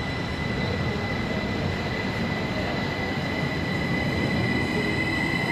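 SBB electric regional train pulling out of the station: a low rumble with a steady high-pitched whine, growing louder and gaining further whining tones near the end as it picks up speed.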